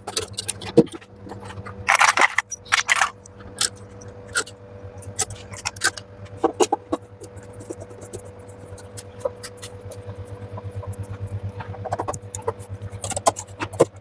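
Metal clicks, clinks and scrapes of hand tools and parts being handled while the stator is refitted on an LG front-loading washer, loudest in a cluster about two to three seconds in, over a steady low hum.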